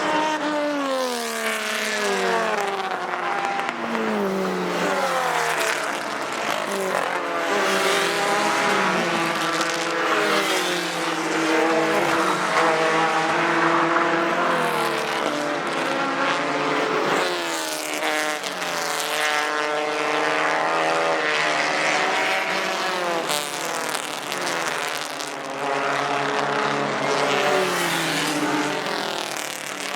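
Several race car engines at high revs, overlapping one another, their pitch climbing through each gear and dropping back at shifts and under braking as the cars pass.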